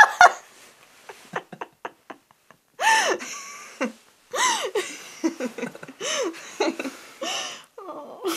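A man and woman laughing together. It starts as faint suppressed snickers and breaths, then about three seconds in breaks into fits of open laughter that rise and fall in pitch.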